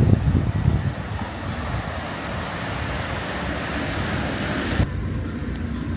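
Traffic on a wet road: a vehicle's tyre hiss swells and then cuts off sharply near the end, leaving a low steady engine hum. A few low wind thumps on the microphone come at the start.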